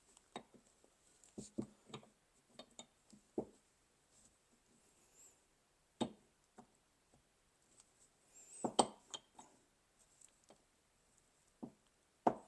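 Irregular clicks and knocks of metal parts handled on a workbench during reassembly of a Kelsey-Hayes four-piston brake caliper, with a louder cluster of knocks about two-thirds of the way through and a sharp knock near the end.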